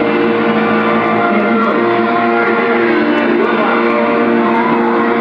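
Loud live harsh-noise music: a dense, unbroken wall of distorted noise with steady droning tones held through it.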